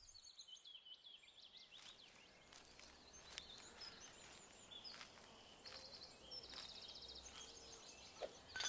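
Faint outdoor ambience of small birds chirping, with a few short rapid trills and a low hiss underneath.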